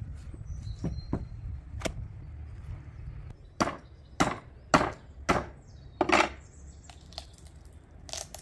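Meat cleaver chopping a leg of lamb on a wooden cutting board: five heavy strokes about half a second apart a few seconds in, and one more near the end.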